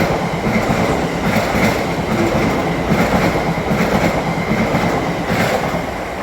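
South Western Railway electric multiple unit running along the track, its wheels clacking over rail joints, often in pairs, with a steady high whine over the rumble. The noise eases off slightly near the end.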